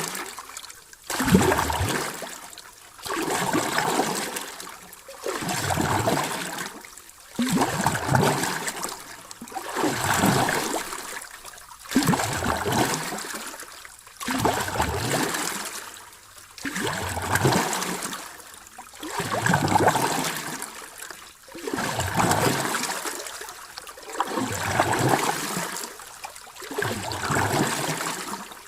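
Sea waves washing in and drawing back, a surge about every two seconds in an even rhythm.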